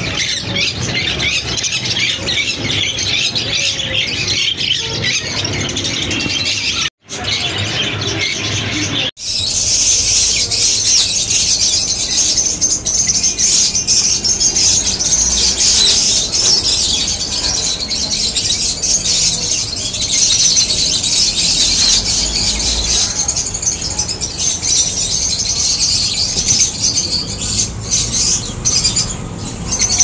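Alexandrine parakeet chicks squawking. Then, after two brief gaps about seven and nine seconds in, a cage of lovebirds chatters in a dense, shrill, high-pitched chorus.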